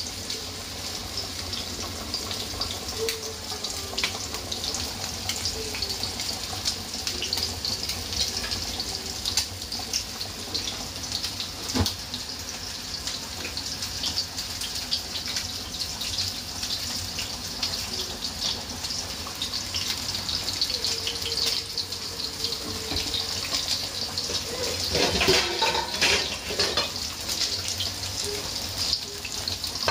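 Flour-coated chicken wings frying in oil in a pan: a steady sizzle with many small pops and crackles, which grows louder for a moment about 25 seconds in.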